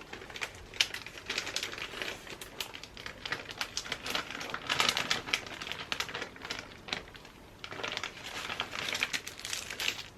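Plastic packaging crinkling and rustling as it is handled, with many small irregular clicks and taps.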